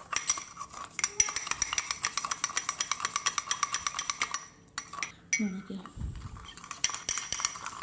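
Spoon beating instant coffee powder, sugar and a little water by hand to whip it into a frothy cream, clinking fast and regularly against the container. The beating stops briefly about halfway through, then resumes.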